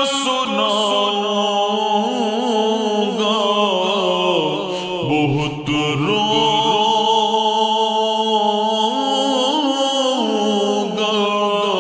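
Naat singing without words: a voice holds long, wavering melismatic notes over a steady layered vocal drone.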